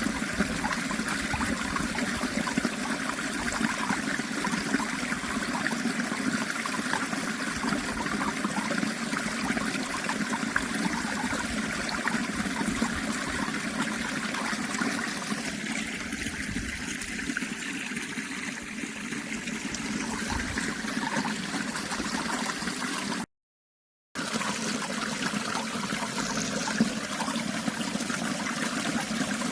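Water of a natural stream trickling and flowing steadily. The sound cuts out completely for under a second about three-quarters of the way through, then resumes unchanged.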